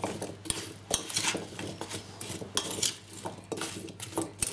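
A spoon scraping and clinking against a stainless steel mixing bowl as cubed raw potatoes are tossed with spices, in many irregular knocks and scrapes.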